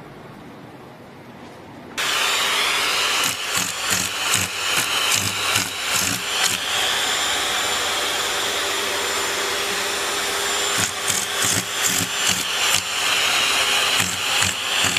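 Vacuum cleaner running with its hose nozzle held against a cat's face and fur. The steady suction noise starts abruptly about two seconds in and carries many short bumps and knocks as the nozzle moves against the cat's fur and paws.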